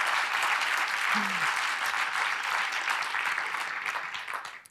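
Theatre audience applauding, a dense patter of many hands clapping that thins out and dies away near the end.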